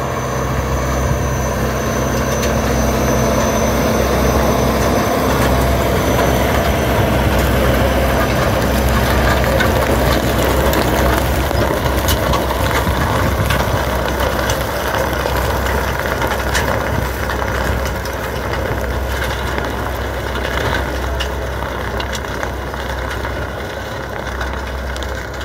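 John Deere tractor's diesel engine running steadily as it pulls a manure spreader whose rear spreading mechanism throws out manure, a continuous low mechanical rumble. It gradually grows quieter over the second half as the rig drives away.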